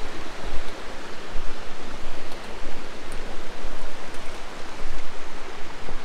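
Mountain river rushing over rocks: a steady, loud water noise.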